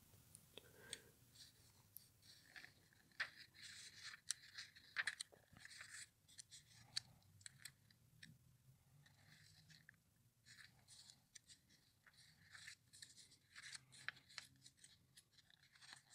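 Glossy catalog pages being flipped and handled by hand: faint, intermittent paper rustles and crinkles with small ticks.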